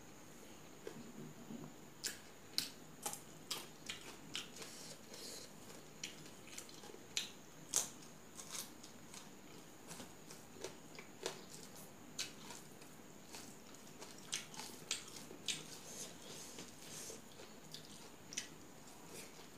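Close-up eating sounds: chewing, lip smacks and crunching as a person eats rice and fish curry with raw greens by hand, heard as irregular sharp clicks about one or two a second.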